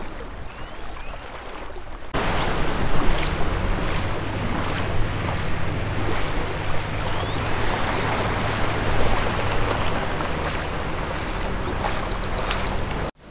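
Water and wind noise from shallow surf, with wind rumbling on the microphone. It jumps louder about two seconds in and cuts off abruptly just before the end.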